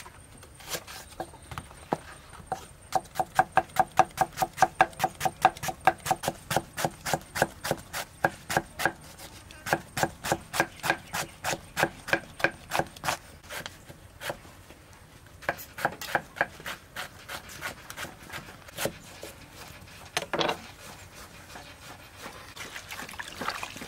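Cleaver chopping a banana flower into fine shreds on a wooden chopping board: fast, even strokes, about four a second, each a sharp knock with a short ring. The chopping pauses briefly twice, and near the end gives way to a softer rustle of the shredded flower being handled.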